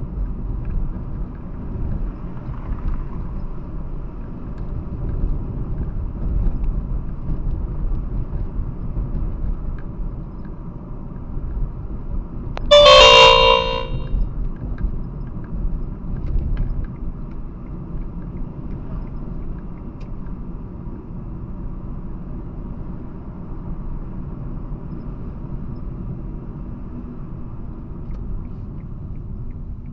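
Steady low road and engine rumble inside a moving car's cabin, picked up by the dashcam's built-in microphone. About 13 seconds in, a loud horn-like tone sounds for just over a second.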